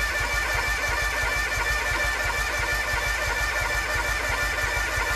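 Kawasaki FD731V liquid-cooled V-twin on a zero-turn mower being cranked by its electric starter, turning over with an even pulse but not firing, then cutting off suddenly at the end. It will not catch because it is not getting fuel.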